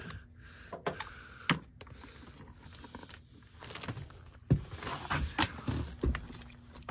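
Scattered clicks, knocks and rustling from hands handling a jumper wire and tools, with a few sharper clicks early on and a busier run of knocks from about halfway in.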